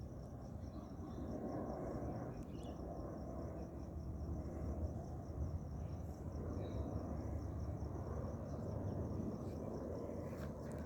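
Distant jet airliner, a Boeing 777-300ER on its way into Perth, heard as a steady low rumble. A faint insect chirp pulses evenly above it, about five times a second.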